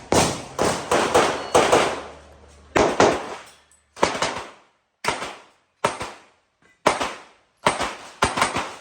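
Pistol shots fired in quick pairs and short strings, with pauses of up to about a second between groups as the shooter moves between targets. Each shot is a sharp crack with a brief echo.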